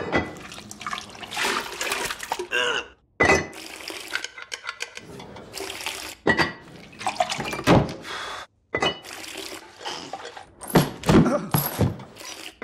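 A quick succession of wet, sloshing sounds and dull thunks, each cut off abruptly: chamber pots being emptied and scrubbed out with water, and pots knocking down on wood. Near the end, a ladle slops food into a bowl.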